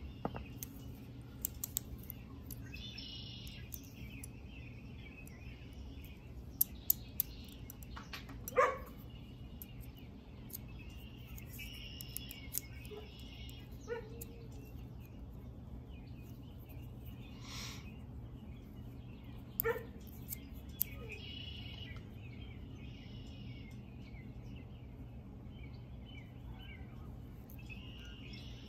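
A dog barks a few times and birds chirp in bursts over a steady low hum, with a few sharp clicks in between.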